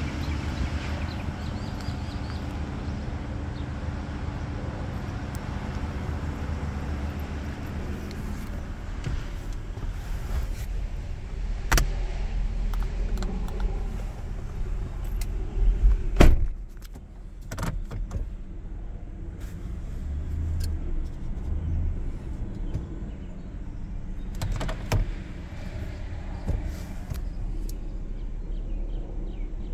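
Ford F-150 pickup idling with a steady low rumble. A door shuts with a loud thud about halfway through, after which the idle sounds quieter and more muffled from inside the cab. A few sharper clicks come before and after it.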